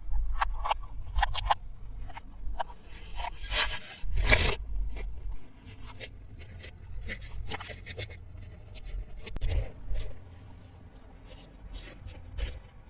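Hands opening and handling toy packaging: a run of short clicks and rustles, with a longer scraping rush about three to four seconds in.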